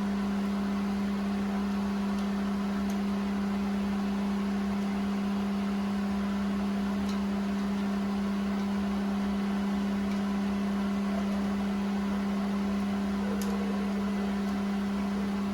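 Steady machine hum: one low tone with a fainter overtone, unchanging, with a few faint clicks.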